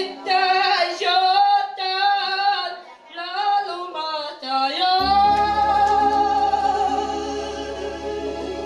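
A young woman singing solo into a hand microphone, her melody full of quick ornaments and vibrato. For the first five seconds she sings without backing; then backing chords and bass come back in under one long held note.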